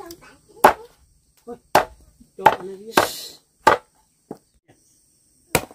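Heavy knife chopping a boiled chicken on a thick wooden chopping block: about half a dozen sharp chops, unevenly spaced.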